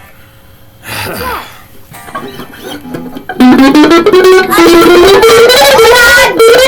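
Distorted electric guitar playing an improvised lead: a short sliding note about a second in, then loud sustained notes from about halfway, bent upward and held with vibrato.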